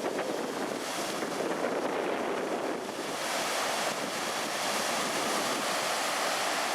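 Rain-swollen river in typhoon flood rushing past as a steady wash of water noise, with wind buffeting the microphone. It turns hissier about three seconds in.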